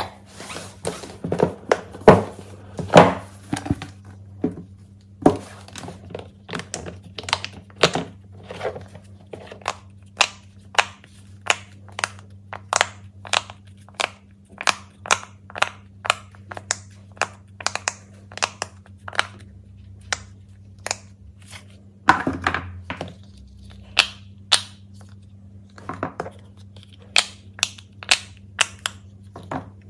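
Silicone pop-it fidget toys, their bubbles pressed in one at a time: a long, even run of sharp little pops, about two a second. The first few seconds hold knocks and rustles of a box being handled, and a faint steady hum runs underneath.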